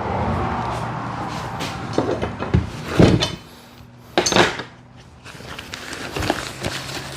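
Gear being rummaged through and moved about, with rustling and scattered knocks and clatters; the loudest knock comes about three seconds in, and another just after four seconds.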